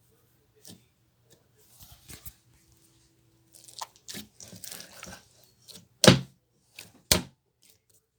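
Close handling noises: scattered clicks and rustles, then two loud sharp knocks about a second apart near the end.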